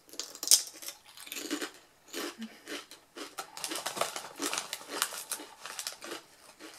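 Close-up crunching of Miss Vickie's kettle-cooked potato chips being chewed, then the crinkly chip bag rustling as a hand rummages in it, densest between about three and a half and five and a half seconds in.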